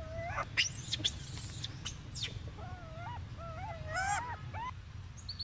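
Baby macaque squealing while pinned down by an adult: a run of short, wavering cries, bunched together about three to four seconds in, with a few sharp high-pitched shrieks near the start.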